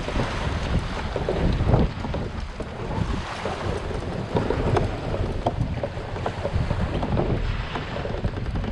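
Strong wind buffeting the microphone in a low rumble, with choppy water splashing and slapping irregularly against a kayak's hull.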